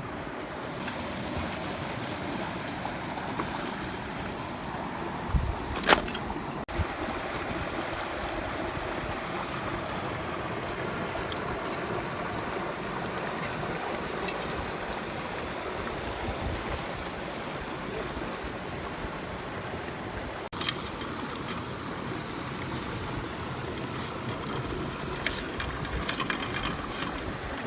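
Rushing mountain stream: a steady, even water noise, with two brief sharp clicks, about six and twenty seconds in.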